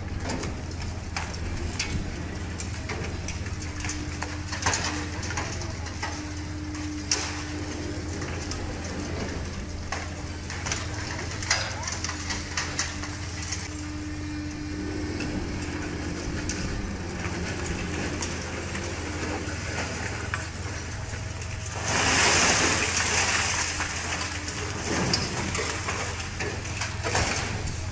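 Heavy equipment's engine running steadily under a constant low hum, with scattered crackling and clattering, and a louder rush of noise about twenty-two seconds in that lasts a couple of seconds.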